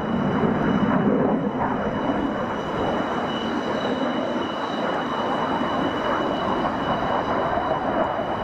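JF-17 Thunder fighter's single Klimov RD-93 turbofan heard as the jet flies its display: a steady rush of jet noise at an even level, with two faint steady high whining tones over it.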